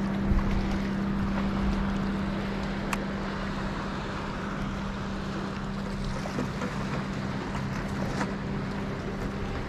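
A boat engine running at a steady pitch, with wind noise on the microphone.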